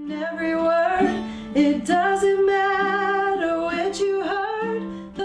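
A woman singing a slow melody in long held notes with vibrato, accompanying herself on an acoustic guitar.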